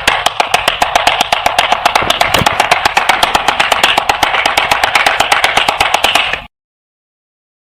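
Applause: a group of people clapping, many quick claps over a steady hiss, cutting off suddenly about six and a half seconds in.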